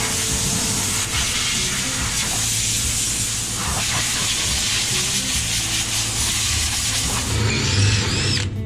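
Angle grinder running steadily against a sheet-steel floor pan, grinding down plug welds: a continuous hissing grind of the disc on the metal.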